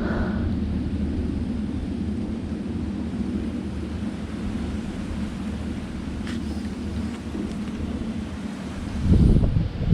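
Steady low rumble of wind buffeting the microphone, with a stronger gust about nine seconds in and a few faint clicks a little past the middle.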